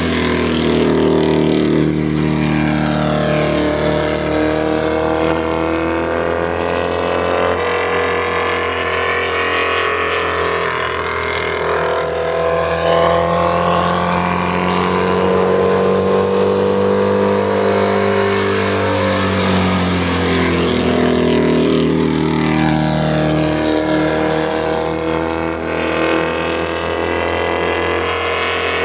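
A dwarf race car's motorcycle engine running hard around an oval track, its pitch climbing as it accelerates and falling away as it backs off, several times over as it laps.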